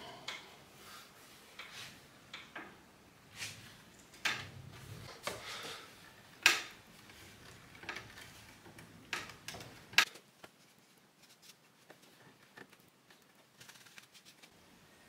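Handling noises from a wooden chair and its plastic bar clamp being moved about on a wooden table: a run of irregular sharp knocks and clacks, three of them loud, then a few seconds of faint cloth rubbing near the end.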